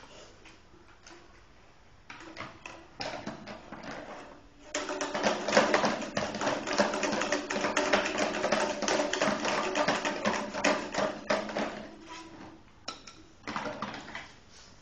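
Rapid clatter of many small taps and clicks: a few scattered taps at first, thickening into a dense, fast clatter from about five seconds in, then thinning out again near the end.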